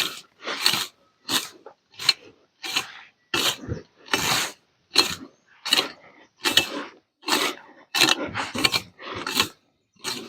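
A rake scraping over cut grass and ground in short, quick strokes, about one and a half a second, gathering up the cuttings.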